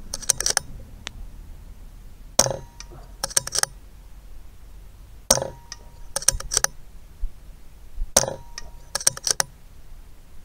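Daystate Delta Wolf PCP air rifle fired three times, about three seconds apart, with a fourth shot right at the end. Between the shots comes a quick run of sharp metallic clicks as the action is cycled to load the next pellet.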